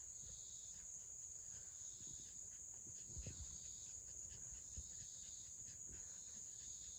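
Insects outdoors keeping up a faint, steady high-pitched chorus, with a low rumble beneath.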